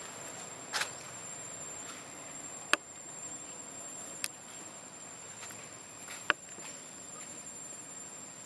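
Steady high-pitched insect drone over quiet outdoor hiss, broken by four sharp clicks spread through it, the loudest near three seconds in and about six seconds in.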